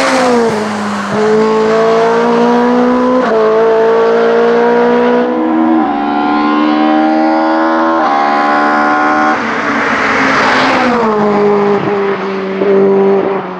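Opel Kadett C GT/E hillclimb race car at full throttle, its engine pitch climbing through the gears with quick upshifts about four times. About ten seconds in, a rush of noise as the engine pitch falls, then it runs on at a steadier pitch.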